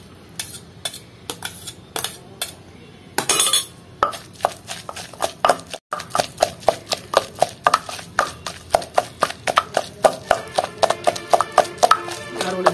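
Wooden pestle pounding a coarse tomato, green chilli and cucumber chutney in a stone mortar: repeated dull thuds, about three to four a second. At the start a steel spoon scrapes the tomatoes off a steel plate into the mortar.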